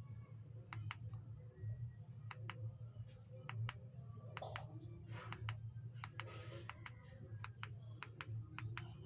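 Small plastic push-buttons on a ring light's inline remote clicking repeatedly, mostly in quick press-and-release pairs, as the light's colour and brightness modes are stepped through. A low steady hum runs underneath.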